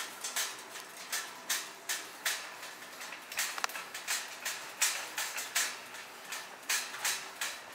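Footsteps clicking on a hard concrete floor, about three a second, along with the light rattle of a wheeled metal flat-bed trolley being pushed.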